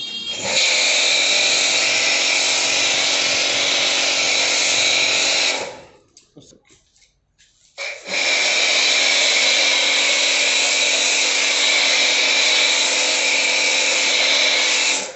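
Starq AWP 2.4 2400 W electric pressure washer spraying through a foam cannon: a steady loud hiss over the machine's hum, in two long runs with a stop of about two seconds in the middle.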